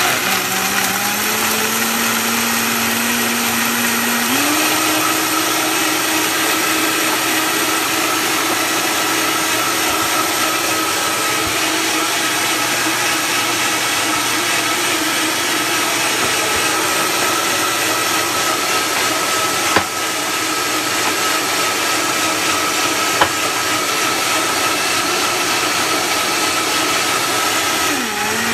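Vitamix Super 5200 blender motor blending a smoothie of berries, soaked nuts and liquid. It starts up, its whine steps up in pitch about four seconds in as the speed dial is turned up, then runs steadily.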